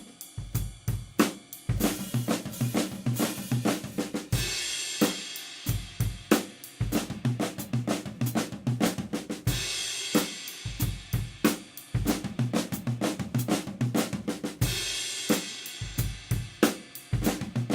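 Drum kit played continuously in a fast run of Swiss Army triplet flam strokes swept across the snare and toms with the bass drum under them. A cymbal crash rings out about every five seconds, near the start, the middle and the end.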